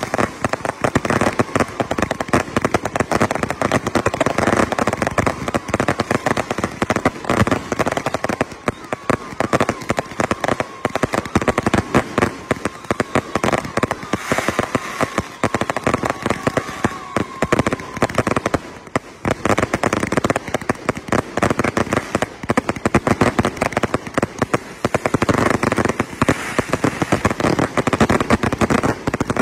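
Consumer fireworks grand finale: a dense, unbroken barrage of bangs and crackles as multi-shot cakes and shells go off in rapid succession. A steady high tone runs under the bangs for the first half or so.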